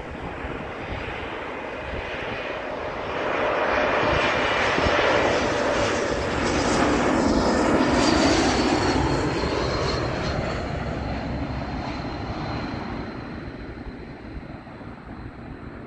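Twin-engine jet airliner on final approach passing low overhead. The engine noise builds over several seconds, peaks about halfway through, then fades, with a high fan whine that slides down in pitch as the jet goes by.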